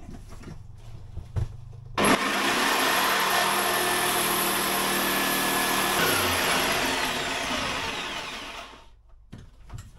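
Electric power saw switched on about two seconds in and cutting a flooring plank, running steadily for about four seconds, then switched off and spinning down with a falling pitch.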